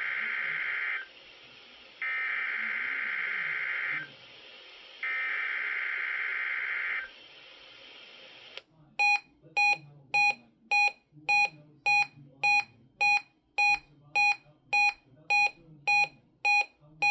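NOAA Weather Radio SAME header tones: three harsh, screeching digital data bursts of about two seconds each with short gaps, the coded signal of a required weekly test. After a pause, a weather radio receiver starts a steady pulsed alert beep, about two beeps a second.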